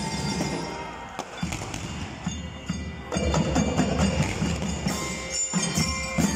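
A school band playing drums and mallet-struck bells, a rhythmic beat under ringing pitched notes. It gets louder about three seconds in.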